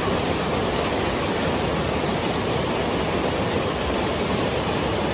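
Strong, fast-flowing water rushing steadily, an even unbroken noise.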